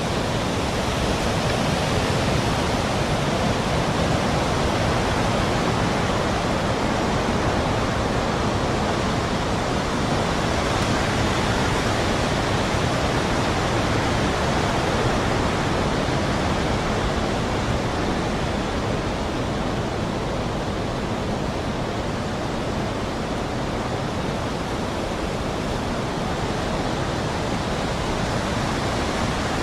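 Steady, even rushing noise, the masking bed of a subliminal track under which affirmations are meant to lie hidden. It runs without a break, easing slightly in level about two-thirds of the way through.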